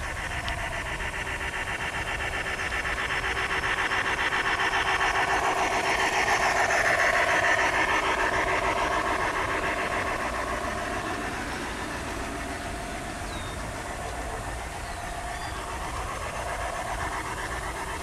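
G scale model train running past on its garden track, its motor and wheels making a fast, even clicking whir that grows louder to a peak about seven seconds in, then fades.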